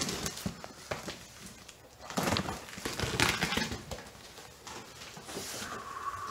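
A knife slicing through packing tape and plastic wrap on a cardboard box, then cardboard flaps scraping and rustling as they are pulled open, in a few short irregular bursts.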